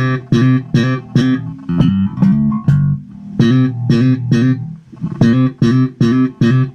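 Electric bass guitar played slap-style with popped notes, heard through a Kalikot Audio Hikari compressor pedal in its active mode. It is a run of short, sharply attacked notes, about three a second, with a couple of brief pauses.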